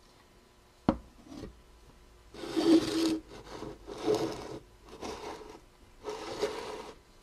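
A sharp knock about a second in, then four bursts of scraping as a homemade Coke-can Stirling engine's tin-can base is turned around on a countertop by hand.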